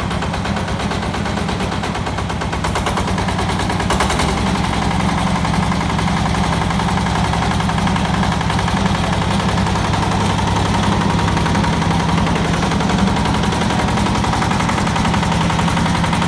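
Yanmar TF105 single-cylinder diesel engine on a Yanmar YZC walk-behind hand tractor, running steadily with a fast, even chugging beat; it gets a little louder about four seconds in.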